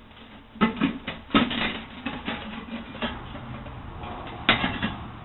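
Sheet-metal top clinking and scraping against the rim of a steel Freon cylinder and a steel pipe as it is pushed down into place: a few sharp metallic knocks and rubs, the loudest near the start and again about four and a half seconds in.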